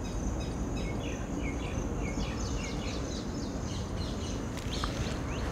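Outdoor ambience: a steady high insect buzz with a bird calling in a quick series of short chirps, about three a second, over a low background rumble.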